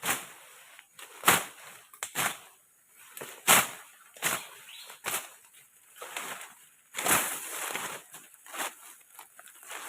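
A series of sharp swishing strikes, irregular at roughly one a second, with a longer rustling stretch about seven seconds in.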